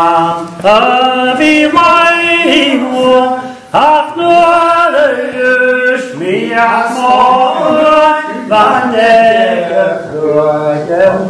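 Unaccompanied male singing, with long held notes that slide between pitches.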